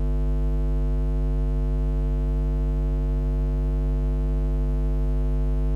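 A steady electrical hum with a buzzy edge, holding one pitch and level throughout.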